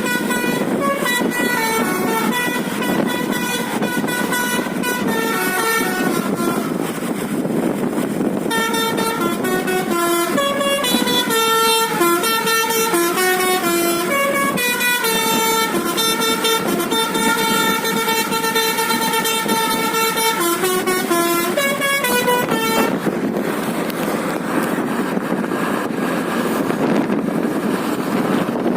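Basuri multi-tone 'telolet' air horn on a bus playing a melody of held notes that step up and down, stopping about 23 seconds in. Steady noise runs underneath and remains after the melody ends.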